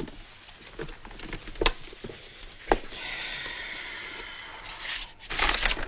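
Handling noise: a few light knocks, then a steady scraping hiss and a short louder rustle, as a box and a sheet of paper are handled.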